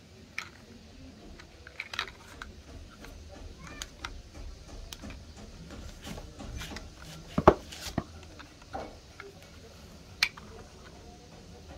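Scattered small clicks and knocks of plastic toys being handled, over a faint low hum; the loudest knock comes about seven and a half seconds in, another near ten seconds.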